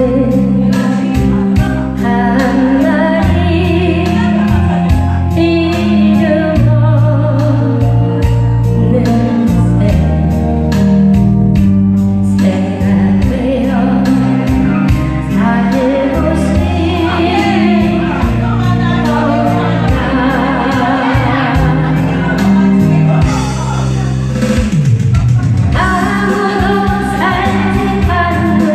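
A singer singing over backing music with a steady beat.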